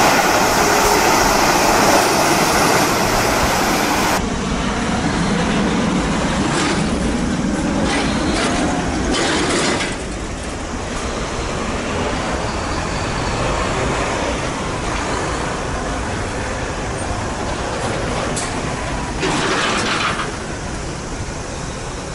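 Heavy trucks driving past: a big diesel truck's engine revs up as it pulls away, then steady traffic noise of passing tractor units and trailers, with two short hisses.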